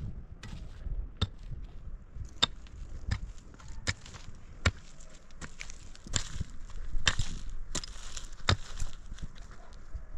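A series of sharp knocks at uneven spacing, about three every two seconds, like a tool striking, with a rustling hiss between about six and nine seconds in.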